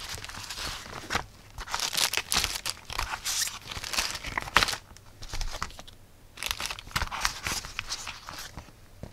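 Clear plastic zip bags crinkling and rustling as packed accessories are handled, in irregular bursts with a pause of about a second just past the middle.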